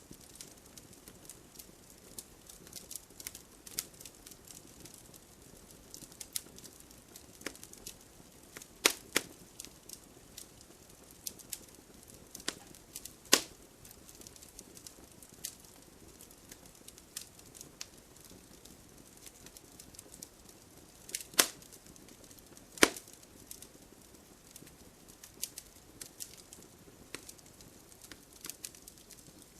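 Wood fire burning in a fireplace: a soft steady hiss under frequent irregular crackles, with four louder pops standing out.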